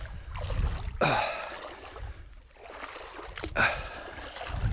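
Footsteps wading and splashing through shallow trail water and mud: a few separate splashes a second or two apart.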